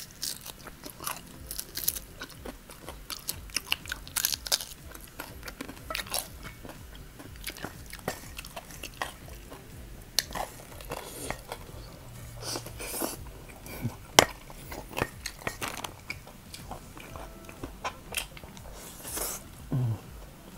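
Close-miked eating: crunchy bites and chewing of fried chicken, and slurping of spicy instant noodles, with irregular crunches and mouth smacks.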